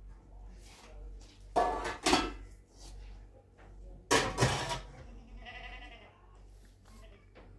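Two loud bleats from livestock, each about half a second long and about two and a half seconds apart.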